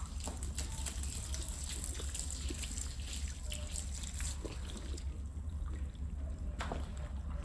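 Water trickling and splashing on a rug being washed, with small irregular splashes and drips that thin out about two-thirds of the way through, over a steady low hum.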